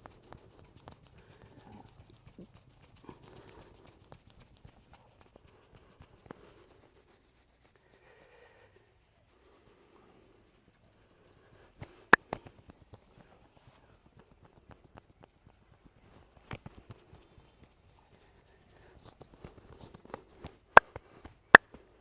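Hands working on skin during a vigorous massage: soft rubbing and patting for the first few seconds, then sharp loud slaps, a pair about halfway through, one a few seconds later and two loudest near the end.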